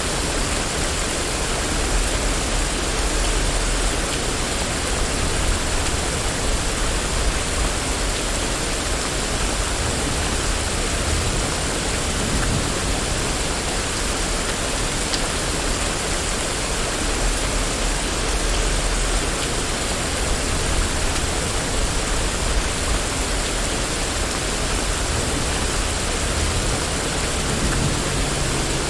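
Steady rain falling on a street, a dense even hiss, with low rumbles swelling and fading underneath and a low hum coming in near the end.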